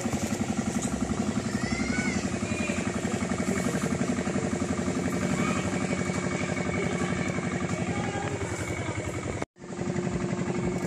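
A small engine running steadily with a fast, even pulse. It cuts out abruptly for a moment about nine and a half seconds in, then resumes unchanged.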